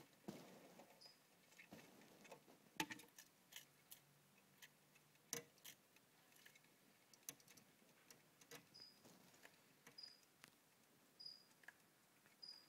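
Veiled chameleon chewing a freshly caught insect: faint, irregular crunchy clicks.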